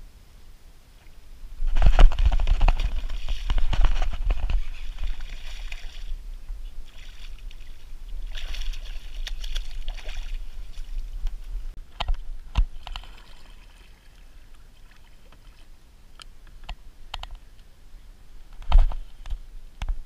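Water splashing and sloshing against the side of a plastic kayak in bursts, as a hooked bass is thrashed at and grabbed by hand at the surface in the reeds. Several sharp knocks follow, the loudest near the end.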